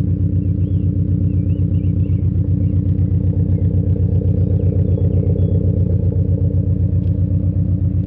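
Subaru Impreza GT's turbocharged flat-four boxer engine idling steadily through a loud exhaust, a low, even, pulsing rumble.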